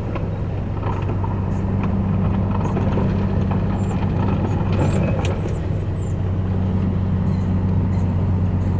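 Truck engine running at a steady drone, heard from inside the cab while driving, over a continuous hiss of heavy rain and wet road.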